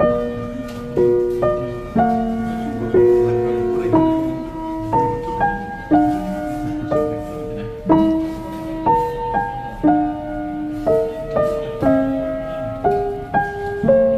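Background music: a slow piano melody over held chords, a new note or chord struck about once or twice a second.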